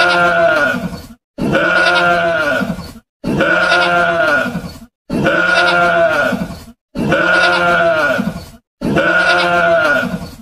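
Bleating livestock: the same long bleat repeated six times, about every two seconds, each call dropping in pitch at its end.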